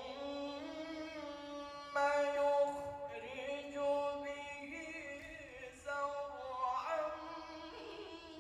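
A man reciting the Quran in the melodic tilawah style into a microphone, singing long held notes with ornamented turns of pitch, in several phrases.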